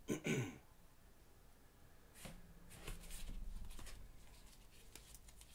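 Glossy Bowman Chrome baseball cards being flipped through and slid against one another by gloved hands, faint rustles and soft clicks, with a short louder noise right at the start.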